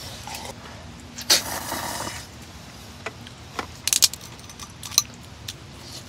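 Eating ramyeon from a metal camp bowl: a short loud slurp about a second in, then several sharp clicks of chopsticks against the metal bowl and cooking pot as noodles are lifted out.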